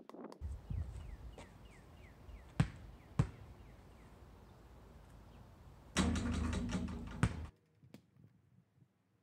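A basketball bouncing on a driveway: two sharp thuds a little over half a second apart, over a steady low rumble. Later comes a louder clattering stretch of many quick knocks lasting about a second and a half.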